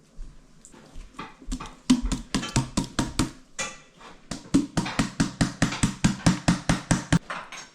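A rapid, even run of sharp knocks or taps, about five a second, starting about two seconds in and lasting some five seconds.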